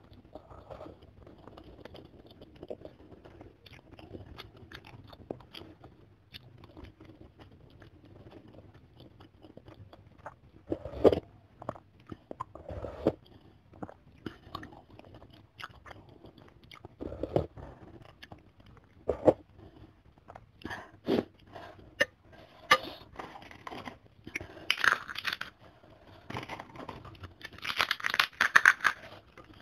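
Close-miked eating of chicken soup with chicken feet and heads: steady chewing and crunching with a few sharper, louder bites. There are two longer, louder hissy stretches near the end.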